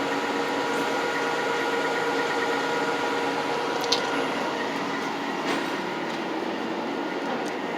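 A machine running steadily: an even drone with faint steady whining tones, and a light click about four seconds in.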